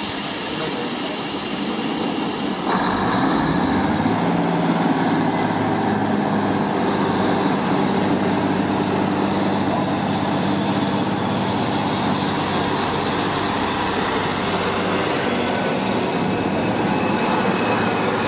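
Class 153 diesel multiple unit's underfloor diesel engine running steadily as the train moves along the platform, with a burst of air hissing for the first few seconds.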